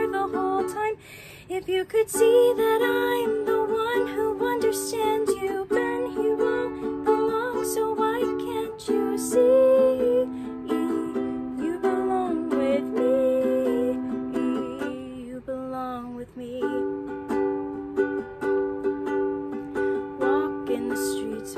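Ukulele strummed in chords with a woman singing the melody along with it, with short breaks in the playing about a second in and again around the middle.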